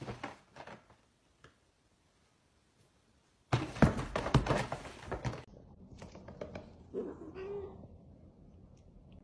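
Two cats scuffling in a felt donut cat bed: after a near-silent pause, a loud burst of thumps and scrabbling starts about three and a half seconds in and lasts about two seconds, then trails off into fainter knocks.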